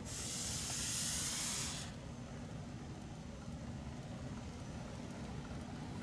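A burst of hiss lasting about two seconds, cutting off sharply, over a steady low hum.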